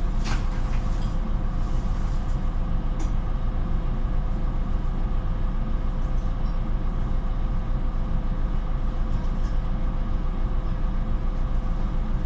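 Solaris Urbino 18 articulated city bus running, heard inside the passenger cabin: a steady low rumble of engine and drive noise with a steady hum over it and a couple of faint clicks near the start.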